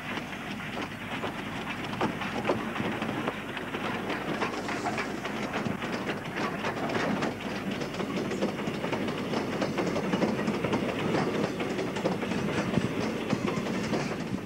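Two South Maitland Railways 10 class steam tank locomotives hauling a coal train past close by: steam exhaust beats mixed with the clatter of wheels and wagons, growing louder as they come near, on an original Super 8 sound-film recording.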